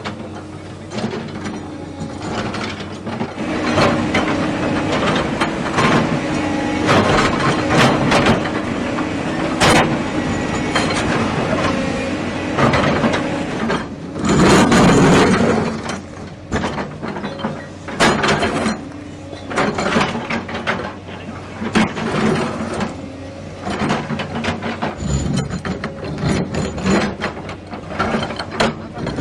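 Heavy demolition machinery at work: a steady engine hum under many irregular knocks and clanks, loudest for a moment about halfway through.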